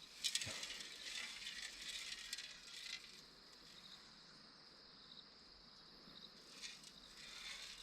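Faint insects chirring in a steady high pitch. For the first three seconds a soft scratchy rustle with small clicks sits over it.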